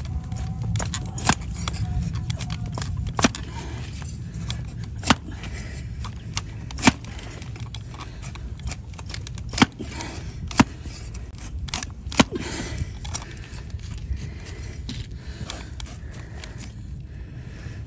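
A wide flat farrier's blade paring a donkey's hoof horn: scraping with sharp cracks every second or two as slivers of horn are cut away, over a low steady rumble.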